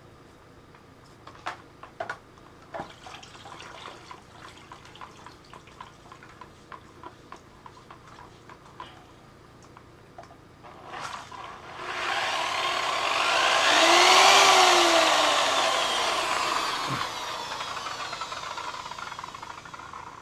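Light clicks and rubbing of hands and cloth on the work for the first half. Then, about eleven seconds in, an aircraft passing overhead: its sound swells to a peak a few seconds later and fades away slowly.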